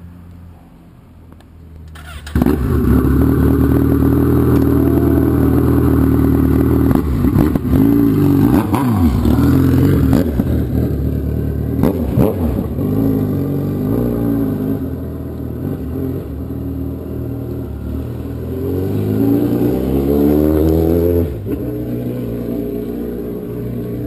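Kawasaki Z1000 inline-four running very loud through an exhaust with its dB-killer baffle removed. It starts up about two seconds in, is revved several times, then pulls away with the engine note rising through the gears and dropping back as it rides off.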